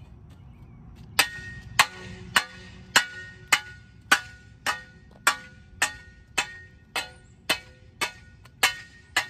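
Metal spade shovel banged again and again on asphalt, starting about a second in. It makes a ringing clang a little under twice a second, about fourteen strikes.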